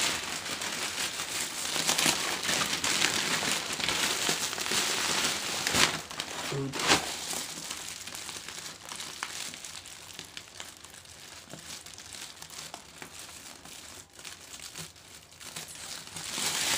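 Thin plastic carrier bags crinkling and rustling as hands untie and pull open a polythene-wrapped package, with a couple of sharper snaps of the plastic about six and seven seconds in. The rustling is softer in the second half.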